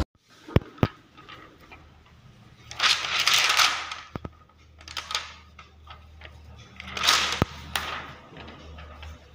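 A thin clear 50-micron polyester film sheet handled with a gloved hand, giving crackly rustling in two swells, about three seconds in and again about seven seconds in, with a few sharp clicks between.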